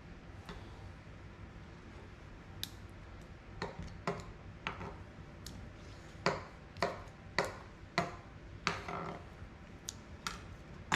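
Kitchen knife chopping cooked octopus on a cutting board: a dozen or so sharp, uneven knocks, thickening to several close together about three quarters of the way through.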